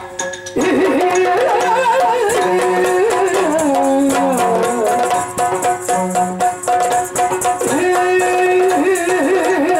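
Yakshagana music: the bhagavata sings a wavering, ornamented melody over a steady drone, with chende and maddale drum strokes throughout. The singing comes in about half a second in.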